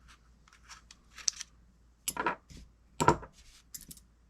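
Small clicks and scratches of fishing-reel parts being handled and worked apart by hand, with two louder sharp knocks about two and three seconds in.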